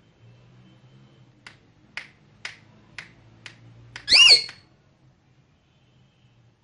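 Six sharp clicks, about two a second, then one short, loud call from an Indian ringneck parakeet that rises and falls in pitch.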